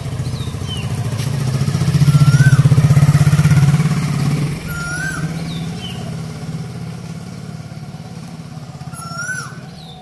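A motor vehicle's engine passes, swelling to its loudest about two to three seconds in and then fading away. Over it, an Asian koel calls three short rising-then-falling notes spaced a few seconds apart, with some higher chirps alongside.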